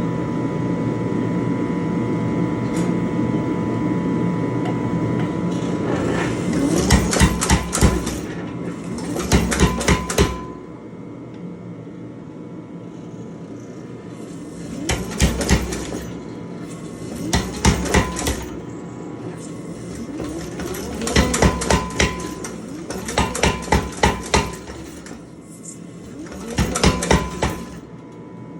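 Power hammer striking hot steel through top tools (a round fuller, then a flatter) in seven short runs of rapid blows, each a second or two long, with a steady hum underneath.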